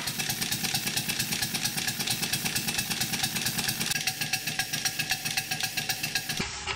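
Scale-model Burrell showman's engine running steadily, its exhaust beating rapidly and evenly while it drives a small generator through a rubber belt.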